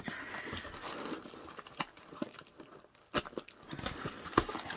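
A paper mailer being peeled and torn off a cardboard box by hand: rustling, crinkling and tearing, with a few sharp crackles in the last second and a half.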